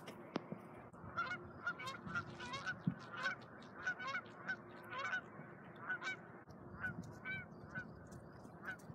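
Waterfowl calling: a faint, quick series of short nasal calls, repeated many times from about a second in.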